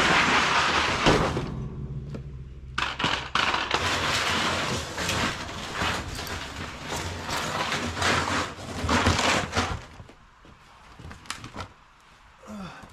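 Heavy 55-gallon drums of scrap metal being slid and shoved about, a long run of scraping and clattering with sharp knocks, easing off into a few scattered knocks near the end.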